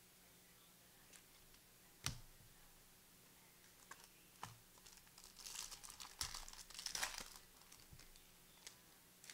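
Trading card pack wrapper crinkling and tearing open, mostly in a stretch from about five to seven seconds in, after a couple of sharp taps or clicks.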